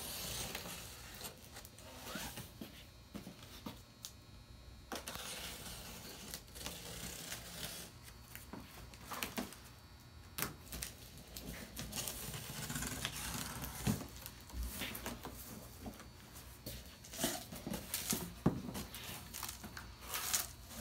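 Packing tape being slit and torn off a cardboard box in a series of irregular rasping rips, with scattered clicks and scrapes of cardboard as the box flaps are folded open.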